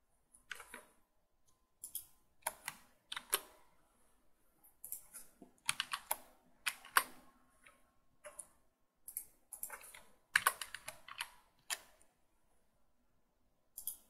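Computer keyboard keys and mouse buttons clicking in irregular short clusters, a few clicks at a time with pauses between.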